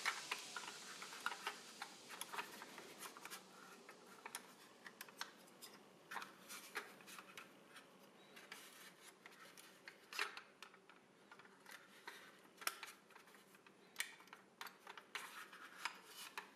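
Faint, irregular clicks and taps of a Mazda RX-7 model car being handled, its small doors and boot lid opening and closing on their hinges.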